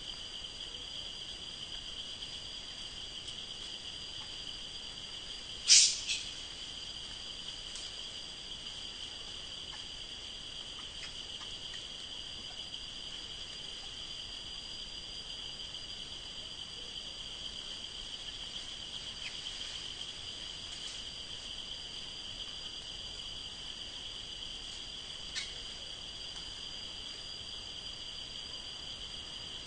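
Steady high-pitched insect chorus of crickets or cicadas droning without a break. A loud short sharp sound cuts in about six seconds in, followed right away by a smaller one, and a fainter one comes near the end.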